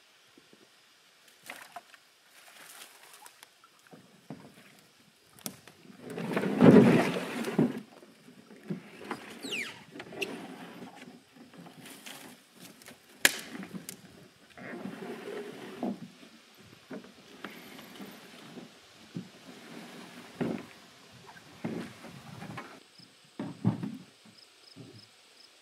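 Wooden canoe dragged through a shallow, rocky stream bed: the hull scrapes and knocks irregularly against the rocks. The loudest part is a long grinding scrape about six seconds in, with footsteps on stones between.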